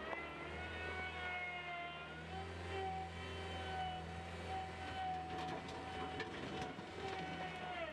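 Skid steer loader running under work, a steady low engine rumble with a whine that slowly rises and falls in pitch as the load changes. A few short knocks come about two-thirds of the way through.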